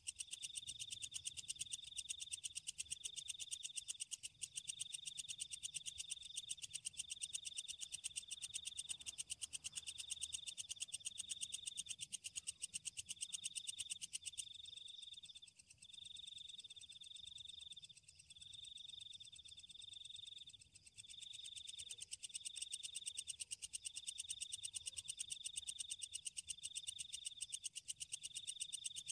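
Night chorus of calling insects: a fast, even, high-pitched pulsing trill repeated in stretches of about a second, over a steady high buzz.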